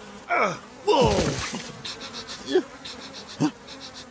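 Cartoon flies buzzing, the buzz swooping downward in pitch several times as they zip past, the biggest swoop about a second in.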